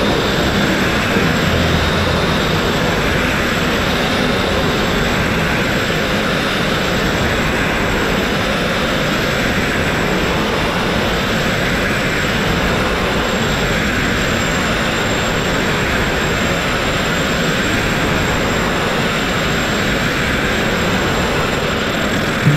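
Sandblasting a boat hull: a steady, unbroken hiss of abrasive blasting from the nozzle, driven by an air compressor.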